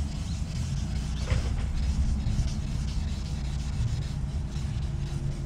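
Hand wet-sanding of a plastic headlight lens with fine 2000-grit sandpaper on a foam pad, the strokes giving only a faint, uneven rubbing hiss. A steady low rumble lies under it and is louder than the sanding.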